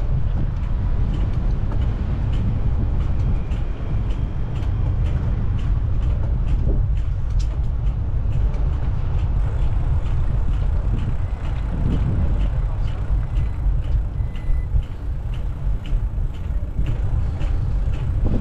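Steady low rumble of wind buffeting the microphone on a moving bicycle, mixed with city traffic, with a light regular ticking about twice a second.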